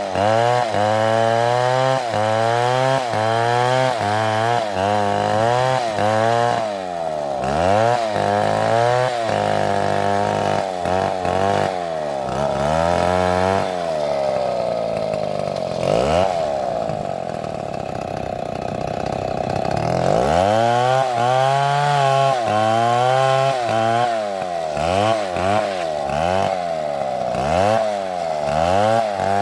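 Petrol chainsaw cutting wood, its engine pitch rising and falling about once a second as the saw works the cut. For a few seconds past the middle it holds a steadier high pitch before the rising-and-falling pattern returns.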